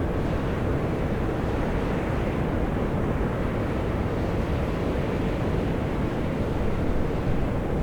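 Volcanic fumarole vents jetting steam and gas in a steady, unbroken roar, heaviest in the low range.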